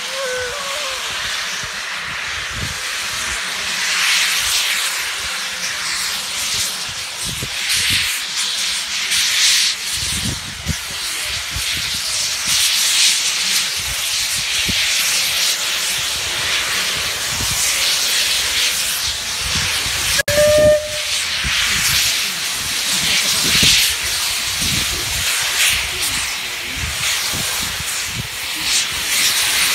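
A Bulleid steam locomotive hisses loudly, blowing steam at track level from its open cylinder drain cocks in uneven surges as it moves off slowly. One short whistle blast sounds about twenty seconds in.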